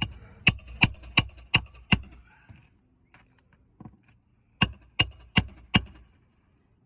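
Hammer striking roofing nails: a run of six sharp, ringing blows about three a second, then four more near the end. The crack of the blows sounds like gunshots.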